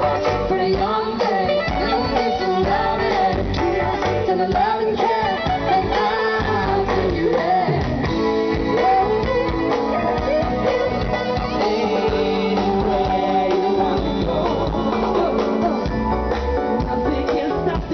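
Music with singing over instruments, playing steadily throughout.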